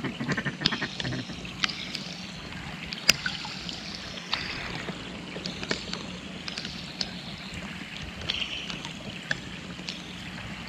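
Steady rain, with single drops striking close to the microphone as sharp, irregular ticks; the sharpest comes about three seconds in.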